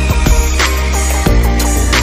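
Background music with a steady drum beat over deep bass.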